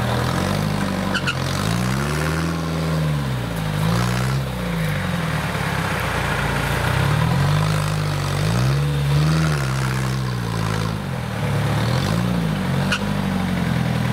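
Mini tractor engine revving up and dropping back again and again, its pitch rising and falling every second or two.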